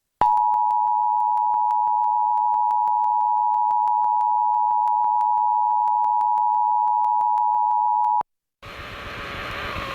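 Emergency Alert System attention signal: two steady tones sounding together (853 and 960 Hz) for about eight seconds, announcing an emergency alert. It cuts off sharply, and after a short silence a hiss fades in and grows louder.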